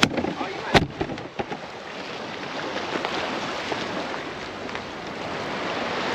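Surf washing against jetty rocks with wind on the microphone, as an even hiss that grows slowly louder. A sharp knock comes a little under a second in.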